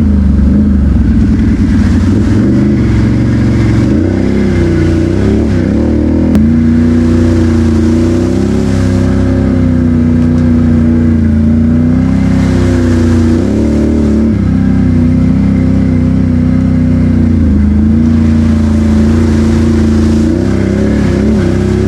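ATV engine running under way, mostly holding a steady pitch, revving up and easing off briefly a few times as the throttle is worked.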